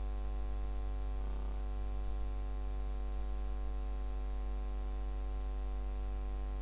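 Steady electrical mains hum with a ladder of higher overtones, unchanging throughout.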